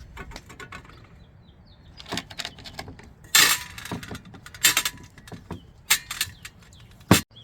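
Small metal parts and tools clinking and knocking against each other in irregular handling: a string of light clicks with a few louder strikes, the loudest near the end.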